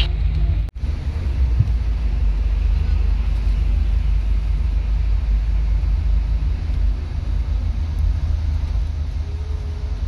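Steady low rumble of engine and road noise inside the cabin of a Pandawa 87 double-decker bus, with a brief dropout under a second in.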